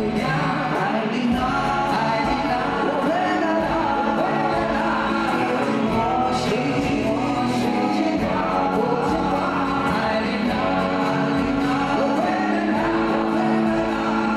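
Live pop-rock performance: male voices singing together over acoustic and electric guitars, amplified through a large arena sound system.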